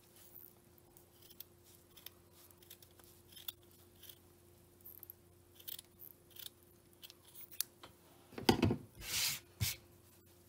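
Small scissors snipping through a fringe of doubled cotton yarn in a run of short, crisp cuts. Near the end comes a louder knock and rustle as the scissors are set down on the table and the crocheted coaster is handled.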